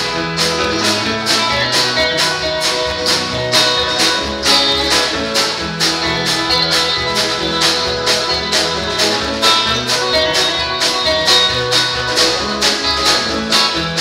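Live band playing an upbeat country instrumental intro, with no vocals: electric bass, electric guitar, drum kit and a strummed acoustic stringed instrument. The beat is steady, at about three strikes a second.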